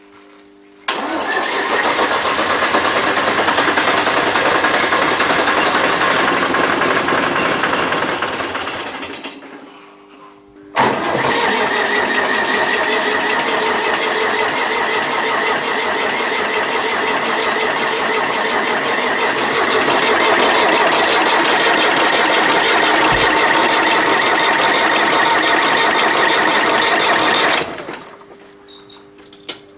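Cold start of a UTB Universal 445 DT tractor's diesel engine. A first attempt runs for about eight seconds and dies away. A second attempt starts suddenly a couple of seconds later and runs for about seventeen seconds, with the exhaust blowing white cold-start smoke, before it stops near the end.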